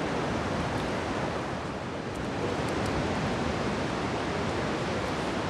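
Ocean surf with wind on the microphone: a steady rushing noise.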